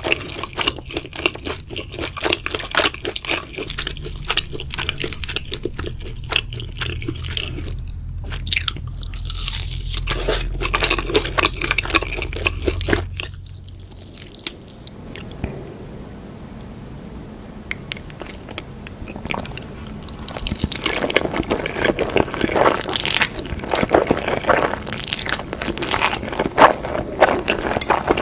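Close-miked eating sounds of noodles and chicken being bitten and chewed: dense wet, clicky mouth noises, with a quieter stretch about halfway through before the chewing picks up again.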